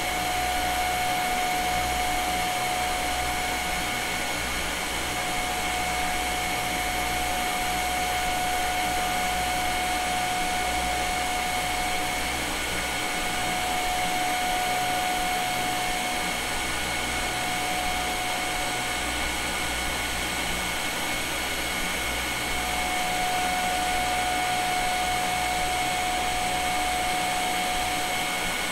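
TIG welding arc on 304 stainless steel running at about 75 amps, giving a steady hiss with a thin high whine through it that drops out now and then for a few seconds.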